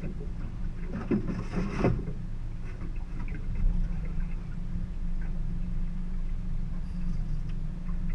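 Steady low hum of a boat's outboard motor, with a short flurry of clicks and rattles about a second in.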